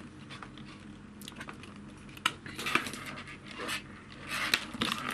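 Handling noise: scattered clicks and rustles as a laptop power adapter, its cable and a multimeter's test leads are moved about and set down on a desk.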